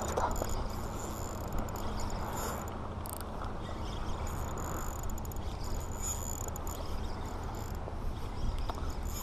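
Spinning reel being cranked to retrieve a lure: a thin mechanical whir from the reel that comes and goes as the handle turns, over a steady low rumble.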